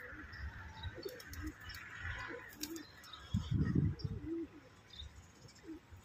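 Domestic pigeons cooing in short, low calls, with a louder muffled burst a little past halfway through.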